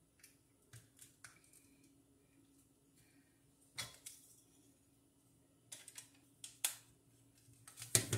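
Scattered small plastic clicks and taps as two AA batteries are fitted into a handheld heat bag sealer and the device is handled; the clicks are irregular, with the loudest ones about four seconds in and near seven seconds.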